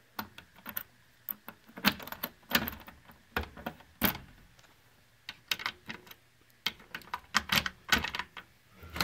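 A key clicking and rattling in the lock of a claw crane machine's cabinet door, with a run of irregular knocks and rattles as the door is worked open.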